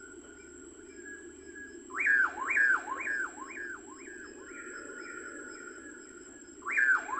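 A bird calling a fast series of repeated notes, each sweeping sharply down in pitch and back up, about three a second. It sings one run of about two seconds, then starts a second run near the end.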